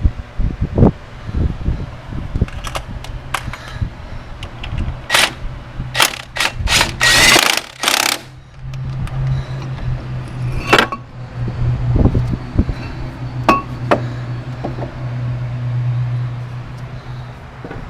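Metal tools and brake parts clanking and knocking, with a loud burst of about a second from an impact wrench about seven seconds in. A steady low hum runs under the later knocks.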